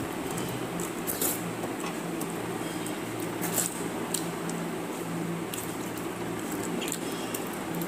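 Wet, squishy eating sounds of hands working watered rice and chicken, with chewing and scattered sharp lip smacks and clicks. A steady low hum runs underneath.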